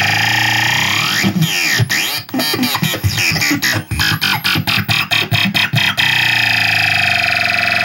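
Circuit-bent toy laser blaster making glitchy electronic sounds. A buzzing tone gives way to a swooping pitch glide about a second in, then a stretch of rapid stuttering chops, then a steady buzzing drone near the end.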